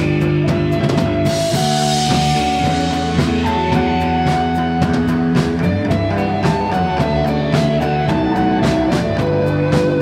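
Live rock band playing an instrumental passage: electric guitars, bass, keyboards and drum kit, with held guitar notes over a steady beat. A cymbal crash comes in just over a second in and fades over the next couple of seconds.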